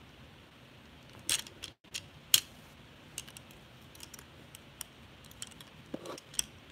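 Scattered light clicks and taps of a phone being handled close to its microphone, the two sharpest about a second and two seconds in.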